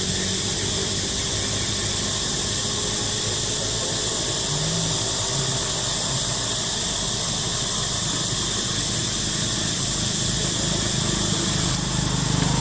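A steady high hiss, with a low hum of motorbike engines passing on the road beneath it.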